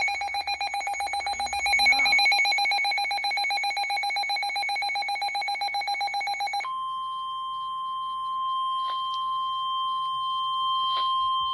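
Emergency weather alert signals: a rapid electronic alarm trilling on several fixed pitches for about seven seconds, then it cuts to one long steady high tone, the weather radio's 1050 Hz alert tone that comes before the spoken warning.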